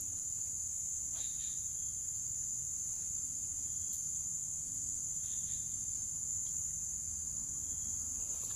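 Insects chirring in one continuous high-pitched drone, with a low rumble underneath.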